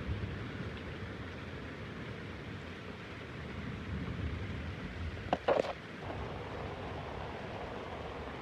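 Steady rain falling, with a brief sharp sound about five and a half seconds in.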